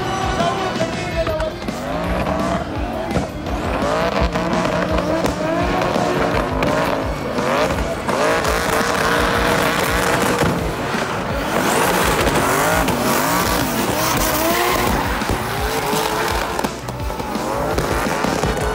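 Drifting cars' engines revving up and down again and again, over continuous tyre squeal as the tyres slide and smoke.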